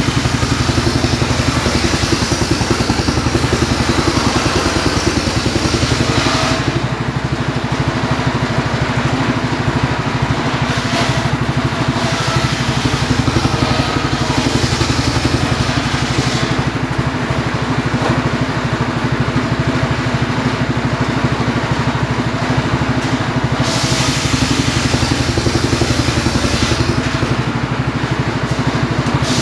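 Homemade engine-driven circular saw ripping a log lengthwise: the motor runs steadily, and the blade's cutting hiss comes and goes in several spells as the log is pushed through.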